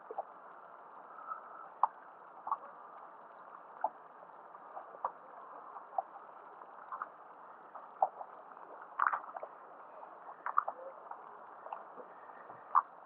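Water lapping and slapping against a small boat's hull: short, irregular splashes about every second over a steady wash of water noise.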